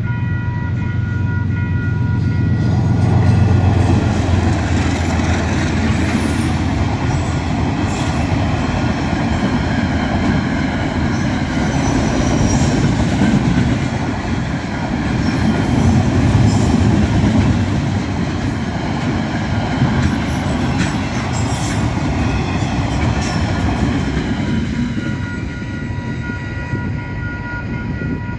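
Diesel-hauled freight train passing over a level crossing. A deep engine rumble from the locomotives in the first few seconds gives way to a long run of container wagons rolling and clattering over the crossing, with brief wheel squeals, easing near the end. The crossing's electronic warning bells ring steadily underneath and are clearest at the start and end.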